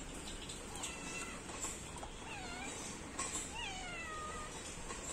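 A cat meowing about three times, each call a drawn-out meow that slides down in pitch, the longest about three and a half seconds in.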